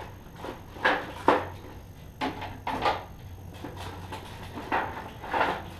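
About half a dozen irregular knocks and clunks as a used alternator is worked into position in a car's engine bay during installation.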